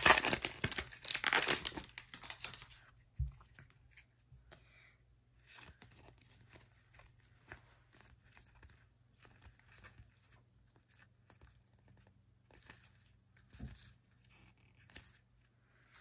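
Foil wrapper of a Score football card pack crinkling as it is torn open, for about the first three seconds. After that come faint scattered clicks of the cards being handled and leafed through.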